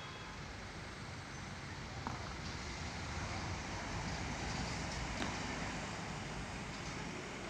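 Steady outdoor road-traffic noise, a continuous rumble and hiss with a few faint clicks.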